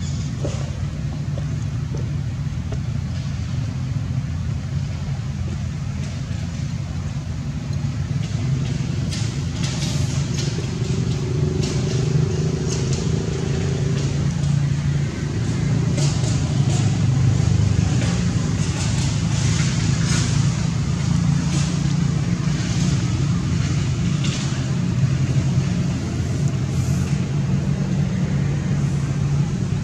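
A steady low engine hum, like a motor vehicle running, with scattered short clicks and taps through the middle.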